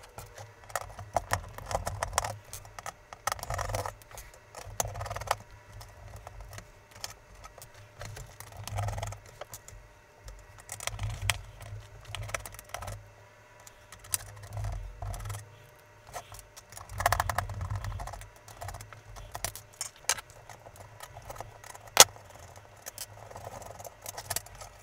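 Small metal clinks, rattles and scrapes as screws are undone from the sheet-metal RF shield of an Amstrad PCW 9256 mainboard with a screwdriver, set down on a wooden bench, and the shield is worked loose by hand. The sounds come in irregular bursts with dull knocks of the board against the bench and one sharp click near the end.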